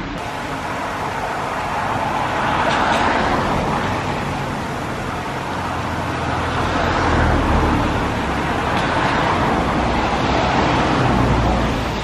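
Road traffic going by: a steady rush of tyres and engines that swells and fades several times as cars pass.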